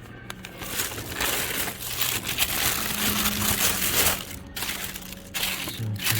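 Parts packaging crinkling and rustling as it is handled, in a run of bursts with a few brief pauses.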